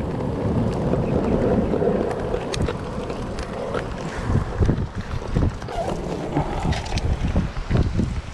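Wind buffeting the microphone, uneven and gusty, over surf washing against shoreline rocks, with a few light clicks.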